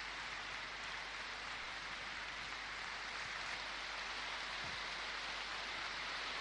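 Large crowd applauding steadily, an even wash of clapping.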